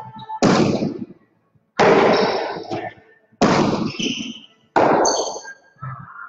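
Four loud smacks of a jai alai ball (pelota) in the court, about one every second and a half. Each is a sharp crack followed by an echoing ring.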